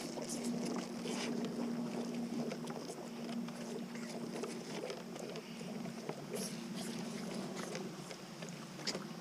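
Calf sucking milk from a bottle nipple, with irregular smacking and slurping, over a steady low hum.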